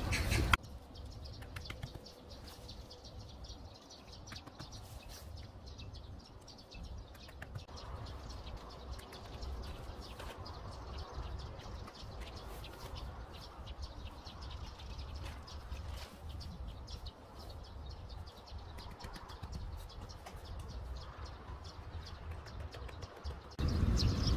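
Faint outdoor background with birds chirping and many small scattered ticks.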